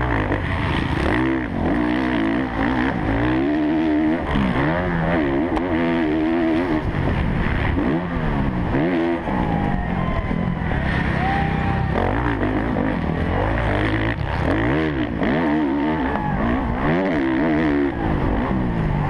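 Kawasaki KX450F four-stroke single-cylinder motocross engine heard up close from an onboard camera, revving up and dropping back again and again as the rider accelerates, shifts and backs off through the track's sections.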